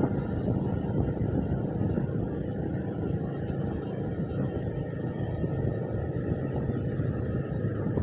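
Steady low rumble of a moving vehicle, with wind buffeting the microphone.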